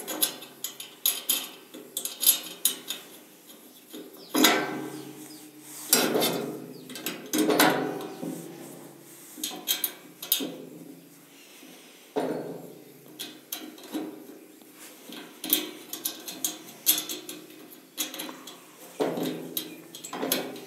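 Metal parts of a stainless-steel wet grinder clinking, knocking and scraping as plates are fitted and nuts are put on by hand. Several of the knocks ring on briefly.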